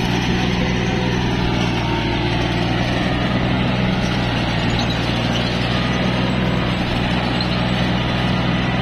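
Tractor diesel engine running steadily, driving a rear-mounted post-hole auger that is boring down into wet, muddy soil.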